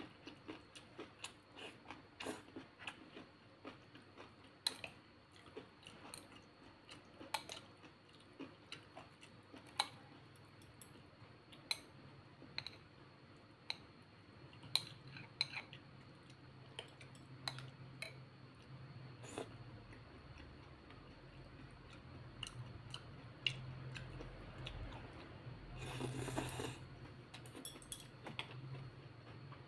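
Metal chopsticks and a spoon clicking and scraping against a ceramic bowl as noodles are stirred, in scattered sharp clicks. A brief rustling burst comes near the end.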